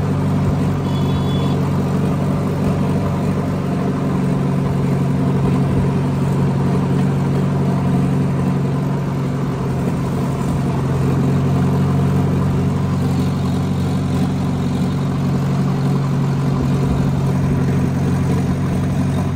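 Tractor's diesel engine running steadily at an even speed.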